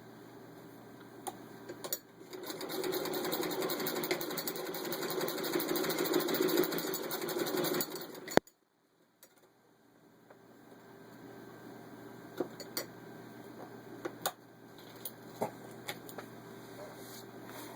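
Hand-cranked 1901 Singer 28K sewing machine stitching steadily through six layers of denim for about six seconds, starting about two seconds in. It stops with a sharp click, followed by scattered light clicks.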